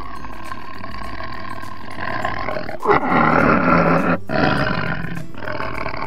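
Tiger calling in long drawn-out calls, about four in a row with brief breaks between them.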